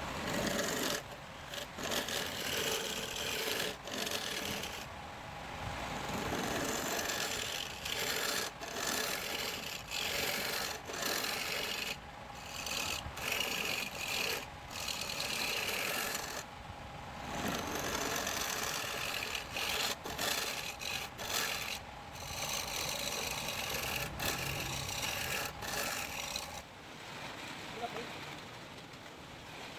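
A tool rasping against wood in uneven strokes with brief breaks, dropping to a softer steady noise near the end.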